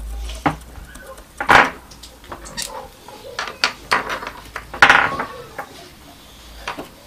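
Scattered light clicks and a few louder knocks of soldering tools handled on a wooden desk: a flux pen dabbed on a small circuit board and capped, then the solder reel and soldering iron picked up.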